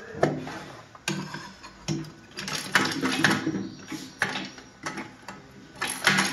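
Metal transmission parts clinking and scraping as a clutch drum and gear set are turned and jiggled by hand to line up their spline teeth and drop into the aluminium case of a 6T41 six-speed automatic transmission. Irregular clinks, busiest about halfway through and again near the end.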